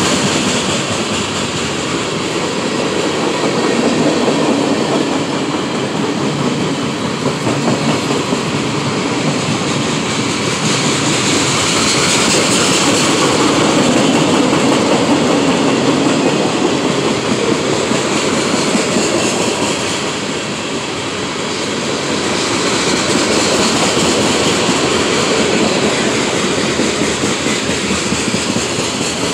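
Freight train of tank cars and covered hopper cars rolling past, a steady, loud rumble and rattle of steel wheels on the rails.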